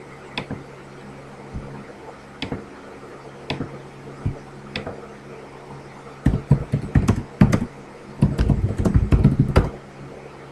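Computer mouse clicks picked up by a laptop microphone, single sharp clicks about once a second, followed by two quick runs of typing on a computer keyboard. A steady low hum with a faint hiss from a room fan runs underneath.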